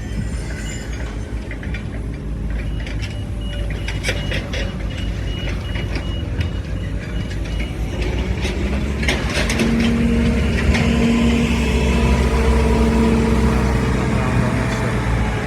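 Heavy demolition machine's diesel engine running, with a reversing alarm beeping over it and a few sharp metal knocks. About eight seconds in the engine revs up and holds a louder working drone.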